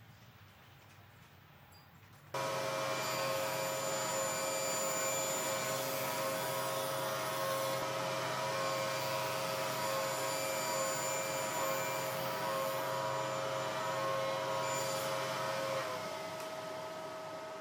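Powermatic table saw running steadily with a constant whine. It comes in abruptly about two seconds in, and near the end part of the tone drops away and it gets quieter.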